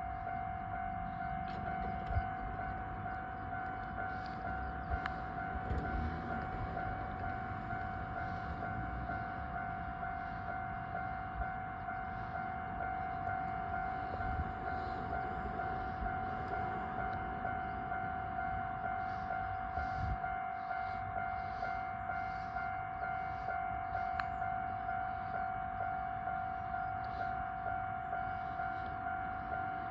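Japanese railway level-crossing alarm sounding: a steady electronic warning tone that pulses in a regular rhythm, signalling an approaching train.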